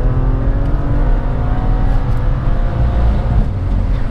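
BMW N54 twin-turbo straight-six accelerating hard in fourth gear during a logged full-throttle pull, heard from inside the car. The engine note climbs steadily in pitch.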